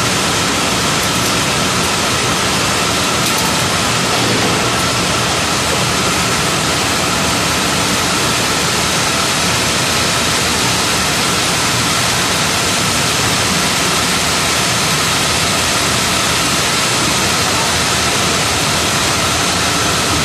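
Steady, loud machinery noise of banks of tape winding machines running, winding plastic tapes onto bobbins, with a faint steady whine.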